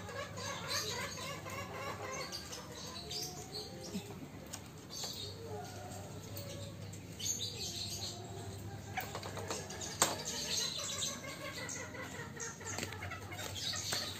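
Fowl flapping their wings at a cage, with a sharp knock about ten seconds in, over continual chirping of small birds.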